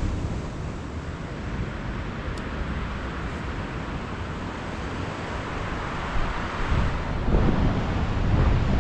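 Strong wind buffeting the microphone over the wash of sea waves, with a heavier gust about two-thirds of the way through.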